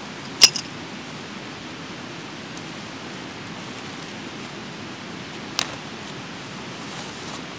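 Backpack being handled: a sharp click about half a second in and another around five and a half seconds in, over a steady hiss of light rain and the nearby river.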